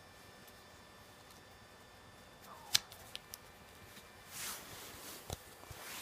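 Handling of the parts of a home-made model H-IIA rocket: one sharp click, two lighter clicks just after it, then a short rustle and a low thump near the end.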